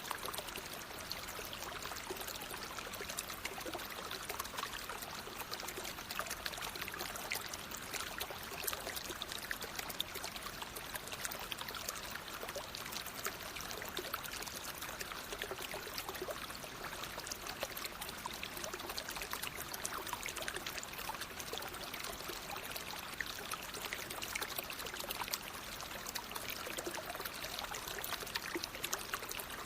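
Natural flowing water: a steady rush with many small splashes and trickles.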